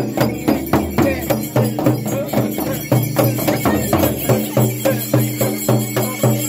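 Two large shaman's frame drums beaten with curved sticks in a fast, steady rhythm of about four strokes a second, as part of a shamanic ritual.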